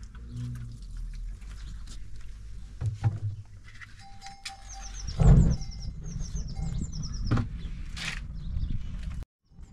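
A wood fire in a mud-built stove flaring up with one loud whoosh about five seconds in, as fuel poured from a plastic jerrycan catches, then burning with a steady low rumble. A smaller flare follows a couple of seconds later.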